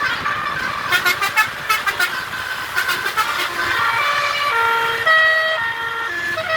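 A tour bus's Basuri telolet horn playing a tune: a run of quick short notes about a second in, then held horn notes stepping up and down in pitch.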